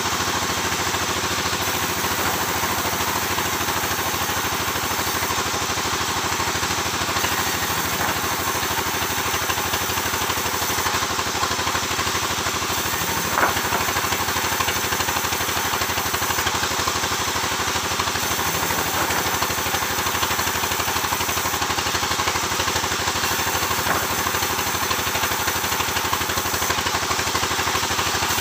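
Sawmill engine running steadily, with a short sharp knock about halfway through.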